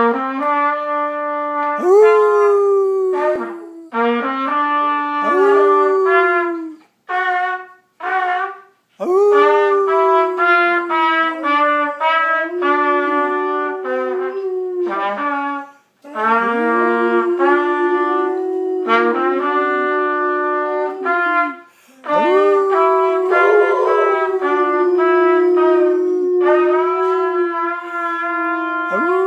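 Greyhound howling: long, drawn-out howls that slide up and down in pitch, in several bouts broken by short pauses, with two brief calls around seven and eight seconds in.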